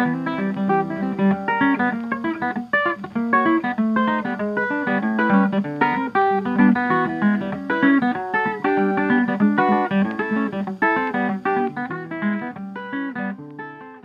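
Instrumental closing music of quickly plucked guitar notes, fading out near the end.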